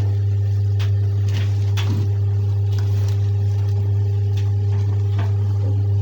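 Steady loud low hum, with scattered light knocks and clicks from items being handled and moved while searching for a bowl.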